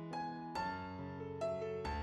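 Background piano music, a gentle melody of struck notes over sustained low chords.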